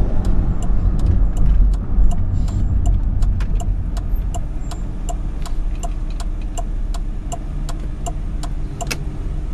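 A car's turn-signal indicator ticking about three times a second over the low rumble of the engine and road noise inside the cabin. The ticking stops with a louder click near the end.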